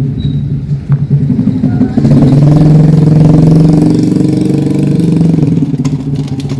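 A motor vehicle's engine running close by, growing louder about two seconds in and easing off slowly toward the end.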